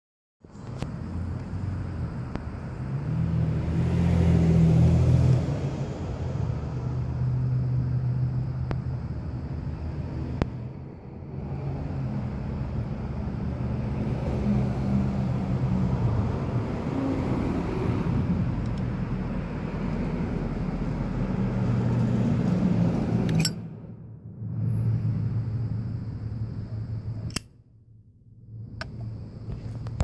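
Low, steady rumble of an engine running nearby, with a few sharp clicks near the end.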